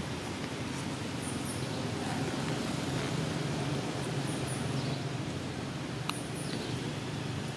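Outdoor forest ambience: a steady low rumble with brief high chirps every second or two and one sharp click about six seconds in.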